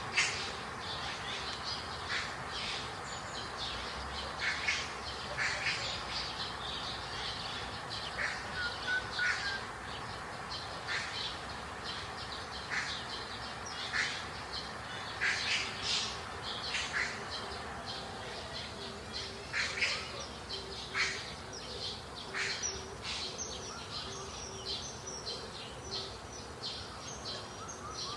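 Several wild birds calling, with many short chirps and calls overlapping at irregular intervals over a steady background hiss. Past the middle, a faint low note repeats rapidly for several seconds.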